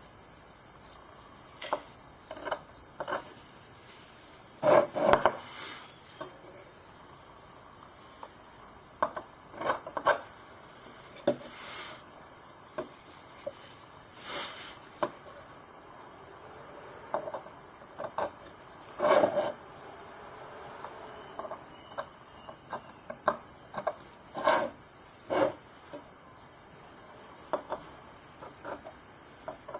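Irregular clinks, taps and scrapes of small metal parts and hand tools being handled at a workbench, with clusters of louder knocks about five, ten, fourteen, nineteen and twenty-five seconds in.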